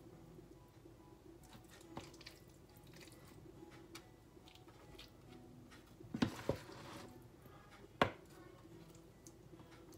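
Scattered kitchen handling noises over a faint steady hum: light knocks about two and four seconds in, a cluster of knocks with a short scraping rustle a little after six seconds, and a sharp knock at eight seconds.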